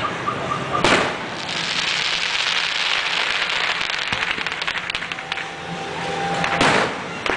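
Aerial fireworks: a shell bursts about a second in, followed by a few seconds of dense crackling, then another loud burst near the end.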